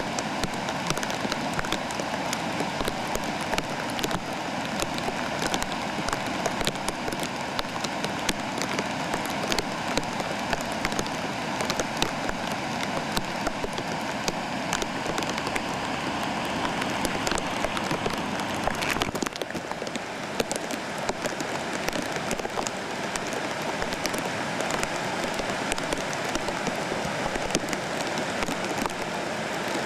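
Flash floodwater rushing through a desert wash: a steady, dense hiss peppered with many small crackling ticks, with a slight change about two-thirds through.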